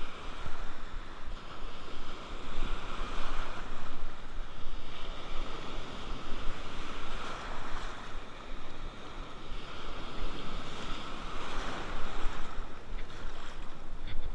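Surf washing and breaking in shallow water, a continuous rushing hiss that surges louder every few seconds as each wave comes in.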